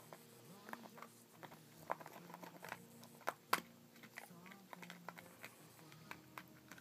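A dog biting and chewing a hard plastic gum container, trying to crack it open: irregular clicks and cracks of teeth on plastic, the loudest pair a little past three seconds in.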